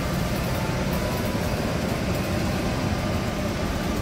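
Steady low rumble of indoor mall and amusement-park background noise, with no distinct event standing out.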